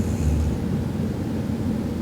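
A sleeping woman snoring: one snoring breath swells and fades out in the first half second, over a steady low rumble.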